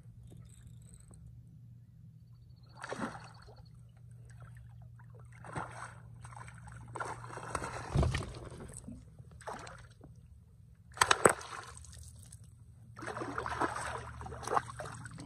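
A hooked redfish thrashing at the surface as it is fought toward the boat, splashing the water in several irregular bursts, the sharpest and loudest about two-thirds of the way through.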